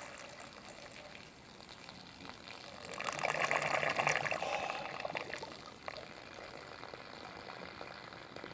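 Water rushing and gurgling through a 3D-printed bell siphon in a rain gutter, louder between about three and five seconds in, then easing off: the siphon has triggered and is draining the gutter.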